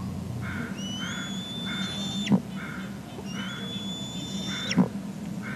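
A webcam's pan-tilt motor whining in two long, steady, high tones, each ending in a sudden drop as the camera stops moving. Under them run short bird calls repeated about twice a second.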